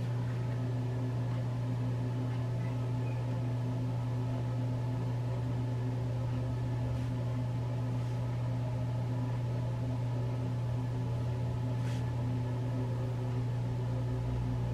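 Steady low hum of a bathroom exhaust fan running, with a couple of faint snips of hair shears cutting hair.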